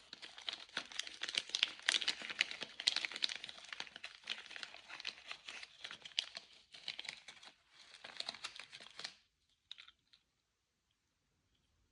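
Candy wrapper crinkling and tearing as a sweet is unwrapped close to the microphone: a dense run of crackles that stops abruptly about nine seconds in, followed by a couple of small clicks.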